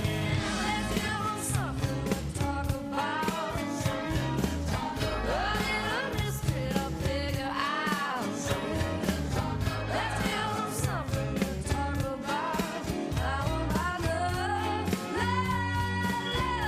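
Pop-rock show theme song: a singer with a band over a steady drum beat.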